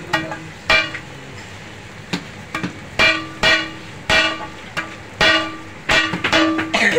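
Metal spatula and scraper striking a large flat iron griddle: ringing clangs, roughly two a second in an uneven rhythm, with a quick flurry of strikes near the end.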